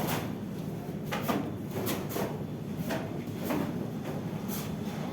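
Plastering trowel scraping over plaster in irregular repeated strokes, about one or two a second.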